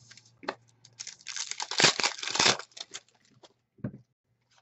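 Foil trading-card pack being torn open and its wrapper crinkled: a noisy tearing and crinkling that starts about a second in and lasts some two seconds, followed by a few light clicks and rustles of cards being handled.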